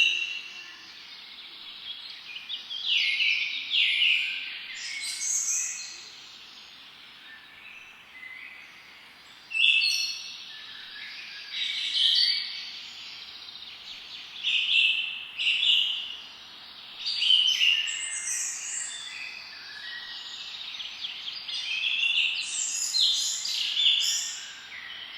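A wild bird singing in short phrases of quick, high chirps and trills, a new phrase every couple of seconds. Faint steady background hiss runs underneath.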